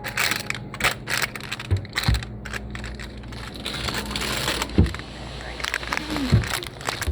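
Rustling, crackling and clicking handling noises, with a few low thumps, over a steady low hum.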